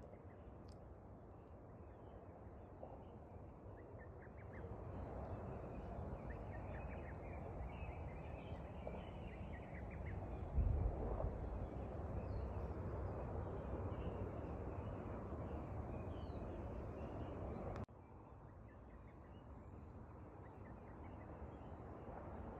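Wind rushing over the microphone, with faint short bird chirps through the middle of it. There is one loud gust or bump about eleven seconds in, and the wind noise drops suddenly near the end.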